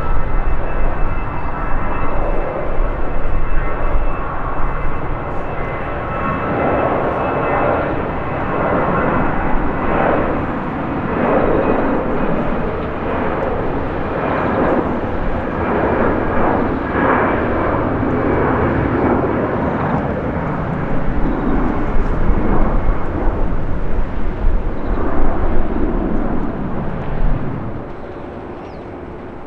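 Airbus A320-200 jet engines at takeoff thrust: a steady roar with a thin high whine riding on it. The roar grows louder about six seconds in and drops away abruptly near the end.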